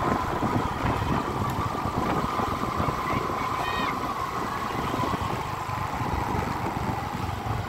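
Motor vehicle running along a road: a steady engine hum and whine that drifts slightly lower in pitch, over a constant rumble of road noise. A brief higher warbling sound comes about three and a half seconds in.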